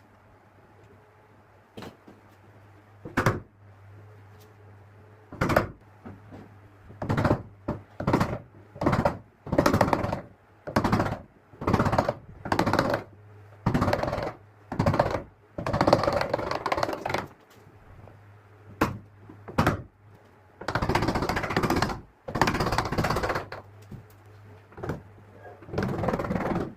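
Repeated knocks and thunks on wood while a door hinge is being fitted, about one a second through the middle, with a couple of longer noisy stretches lasting a second or two near the end.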